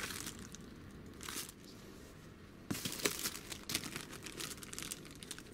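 A clear plastic bag of engine gaskets crinkling and rustling as it is handled, in irregular bursts. There is a quieter stretch in the middle, and the crinkling picks up again a little under three seconds in.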